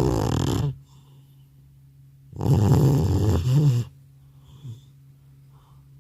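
Old cat snoring loudly in deep sleep: one snore trails off under a second in, a second, longer snore follows from about two and a half to four seconds in, and a small snuffle comes near the end.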